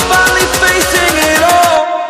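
Electronic background music with a fast, steady beat and a rising synth line; the beat drops out near the end, leaving a held chord.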